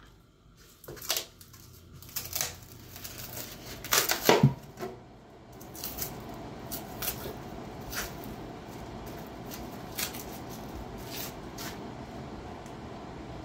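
Plastic wrap crinkling and tearing as a tray of raw meat is unwrapped, with sharp crackles, the loudest about four seconds in. From about six seconds in a kitchen tap runs steadily as the meat is rinsed, with occasional light clicks of handling.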